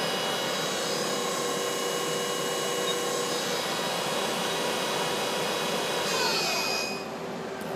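Main spindle of an Okuma LB-15II-W CNC turning center spinning its 8-inch hydraulic three-jaw chuck with a workpiece, a steady whirr with a few thin whining tones. Near the end a tone falls in pitch and the sound gets somewhat quieter.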